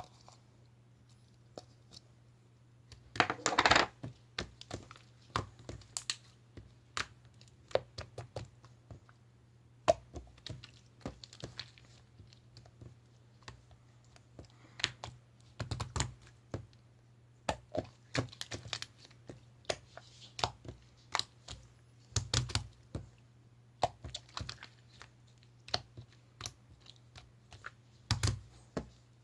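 Slime being pressed, poked and stretched by hand, giving many irregular sticky clicks and crackles, with a louder crackling burst about three seconds in. A faint steady low hum runs underneath.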